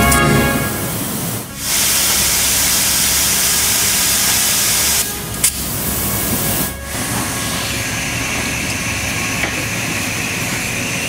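Loud, steady hissing of sheet-metal laser cutting machinery and its pneumatic sheet-handling equipment, broken by short dips between shots. There is a sharp click about five and a half seconds in, and a faint steady whine comes in for the last few seconds.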